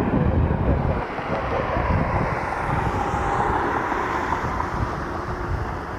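Jet airliner on approach, a Frontier Airlines jet: steady engine rumble with a faint whine that builds and fades around the middle, under gusty wind buffeting the microphone.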